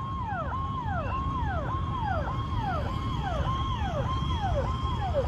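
Electronic siren of a police vehicle sounding a repeating wail, each cycle a held high note that drops away, about twice a second, over a low rumble.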